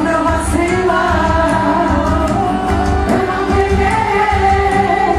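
Devotional song: singing over music with a steady low beat.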